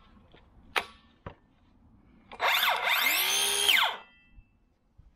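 Stanley FatMax V20 18V cordless circular saw briefly triggered with no load. The motor spins up with a rising whine, then winds down about a second and a half later. A few light handling clicks come before it.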